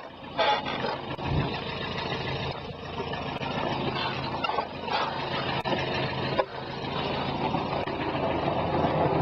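Steady rushing of wind and wheels on the road during a downhill ride on a gravity tricycle, growing louder near the end as it picks up speed. A few knocks sound over bumps, about half a second in, a second later and again past six seconds.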